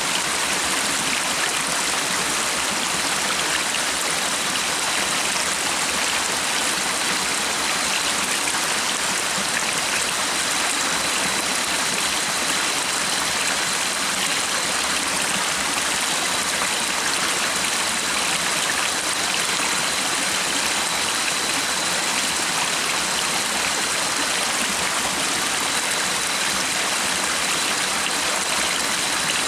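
Flowing stream water, a steady even rush with no breaks.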